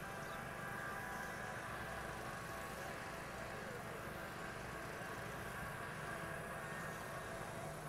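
A racing jet boat's engine idling steadily, with no revving.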